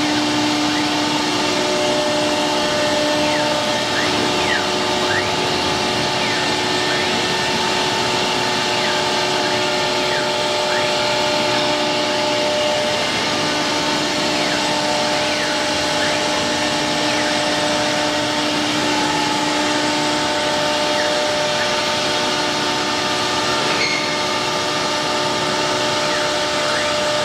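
CNC router running a cutting job: a steady machine noise with several held motor tones that change every few seconds as the axes move, and short rising and falling whines.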